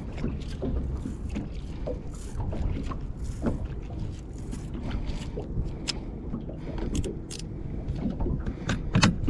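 Water sloshing against the hull of a small drifting boat, with wind on the microphone, and a few sharp clicks and knocks from the rod and reel being handled in the second half.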